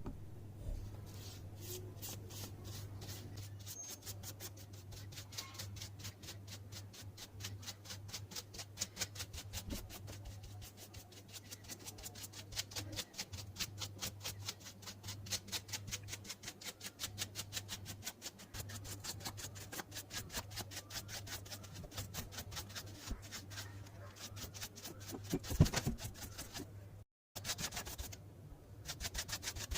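Steady rhythmic rubbing or scrubbing strokes, about four a second, over a low steady hum, with a brief break near the end.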